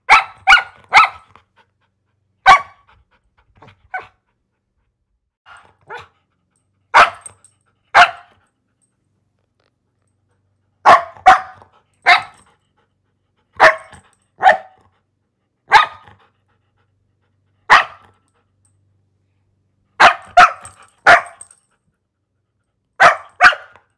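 A dog barking: about twenty short barks, some in quick runs of two or three and a few fainter, with silence between them.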